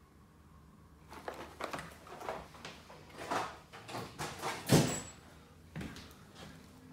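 A run of irregular knocks and clicks with some rustling, like objects being handled and set down, starting about a second in; the loudest is a sharp knock a little before five seconds in.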